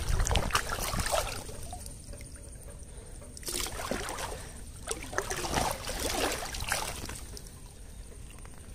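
Shallow creek water sloshing and splashing in a few uneven bursts, as someone wades and works through it by hand while net fishing.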